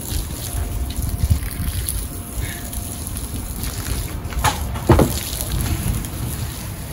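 Fire rushing up through an upright bundle of boards being charred for shou sugi ban, a low rumbling burn. About five seconds in, a thud as the burning bundle is laid down on the ground. A garden hose then sprays water onto the flames.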